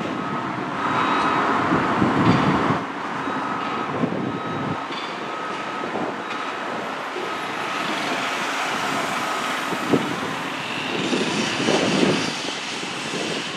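Road vehicle noise heard on a drive-by: a steady rush with low engine rumble rising and falling, and a faint short beep repeating evenly through the middle.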